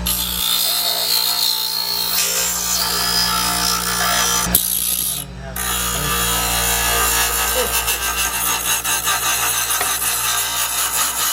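Power grinder grinding a fidget spinner: a loud, steady rasping grind that drops off briefly about halfway, then comes back with a fast pulsing flutter.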